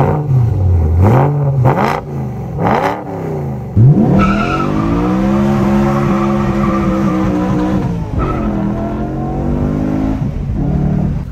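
BMW E92 M3's 4.0-litre V8 revved in about three quick blips, then accelerating hard in a long pull heard from inside the cabin, starting suddenly about four seconds in. The engine note dips and climbs again about eight seconds in.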